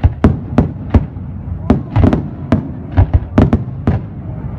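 Fireworks display: a rapid, irregular run of sharp bangs, about three a second, over a low rumble.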